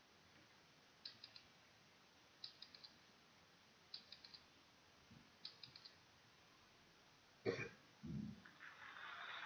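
Quiz countdown-timer sound effect: quiet clusters of three or four quick high ticks about every second and a half. Near the end come a sharp hit and a low thump, then a hiss that builds up.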